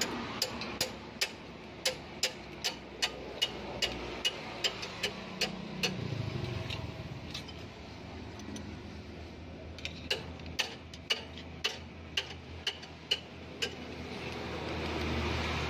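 Evenly spaced metal clicks, about two or three a second, from a spanner working the locknut on a rocker arm adjusting screw while valve clearances are set on a Hino 500 diesel cylinder head. The clicks come in two runs with a pause between them. A low rumble swells near the end.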